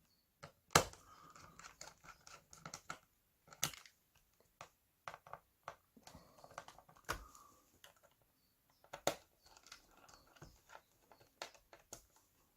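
Small handling noises of a laptop's bottom cover being screwed down with a small screwdriver: irregular light clicks and short scrapes, with a few sharper clicks standing out.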